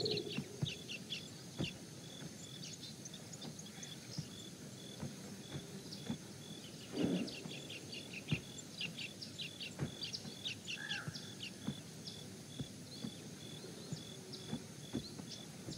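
Outdoor nature ambience: many short bird chirps over a steady, evenly pulsing high insect trill like crickets, with a few faint knocks.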